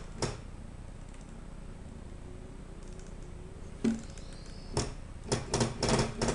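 Delta 3D printer's stepper motors giving a faint rising whine about two to four seconds in while the axis does not move down, which the owner takes for stuck motors. Then comes a run of irregular sharp clicks.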